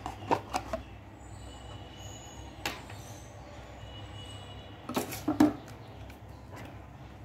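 Handling noise from unpacking a smartwatch box by hand: light clicks and knocks of cardboard and small plastic parts, a quick run of them at the start, a single one near the middle, and a louder few about five seconds in.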